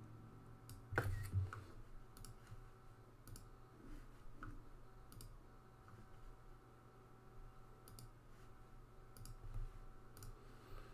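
Sparse, irregular clicks of a computer mouse and keyboard, a dozen or so, over a faint steady hum, with a soft low thump about a second in.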